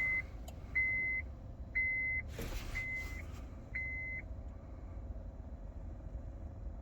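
Electronic warning beeps, about one a second, each about half a second long, stopping after about four seconds; a brief rustle about two and a half seconds in.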